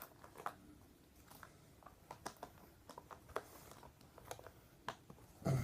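Faint scattered clicks and light taps of small objects being handled, about a dozen short ticks spread unevenly over a quiet room hiss.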